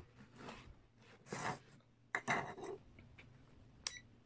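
Rustling and scraping as a digital multimeter and its test leads are handled and slid across a tabletop, then near the end a click with a short high beep as the meter's rotary dial is turned.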